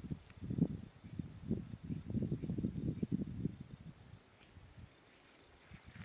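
An insect chirping high and regularly, about every half second, under the low, irregular rustling thumps of footsteps through the vegetation and the handheld camera moving, which die away about four seconds in.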